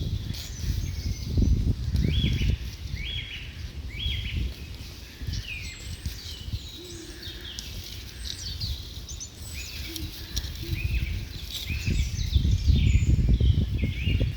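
Small birds chirping over and over in short high notes, with a low rumbling noise that is strongest at the start and swells again near the end.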